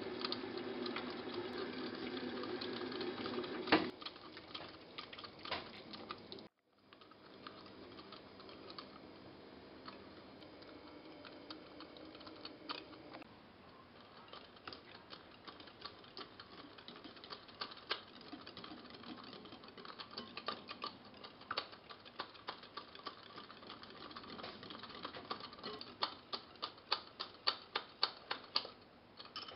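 Wire whisk beating batter in a glass bowl, its wires clicking against the glass in quick runs. The clicks grow louder and more regular near the end. About six seconds in there is a brief break to silence, and before it a steadier kitchen noise with scattered clicks.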